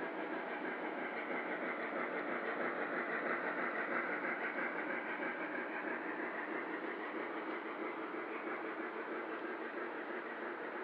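O scale model freight train rolling past, its metal wheels clattering and rumbling steadily on the track as the string of reefer cars goes by. It grows a little louder a few seconds in, then eases off.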